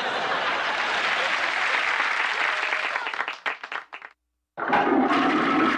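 Sitcom studio-audience applause, dying away after about three and a half seconds. After a brief silence, a toilet starts flushing near the end.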